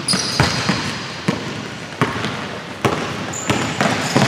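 Basketball dribbled on a hardwood gym floor, about six separate bounces at irregular spacing.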